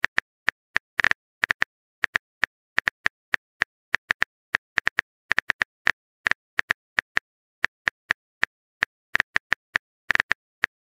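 Rapid, irregular clicking, about three to five clicks a second with some in quick clusters: a phone keyboard typing sound effect.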